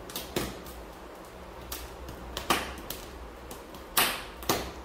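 Fresh corn husks being torn off the cob by hand: several separate sharp tearing rustles, the loudest about four seconds in.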